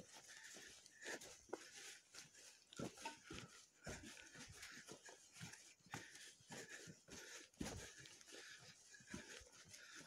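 Faint, irregular footsteps crunching through fresh snow, over a steady soft hiss.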